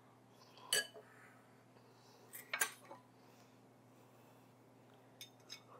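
Metal utensils clinking against ceramic dishes as salad is served onto a plate: one clink about a second in, two close together near the middle, and two lighter ones near the end.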